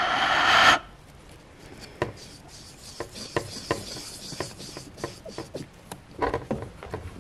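Handling noise on the camera body right by its microphone: a loud rubbing hiss for about the first second, then scattered light clicks and taps, a few close together about six seconds in.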